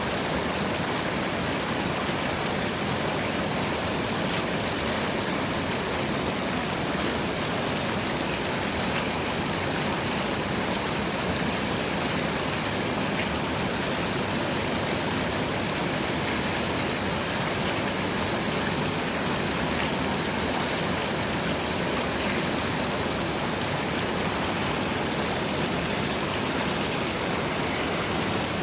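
Water running steadily: a constant, even rush with faint splashing ticks and no change in level.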